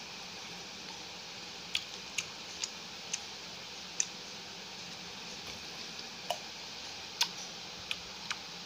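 Scattered sharp clicks and ticks, about nine, spaced unevenly over a steady hiss; the loudest is about four seconds in.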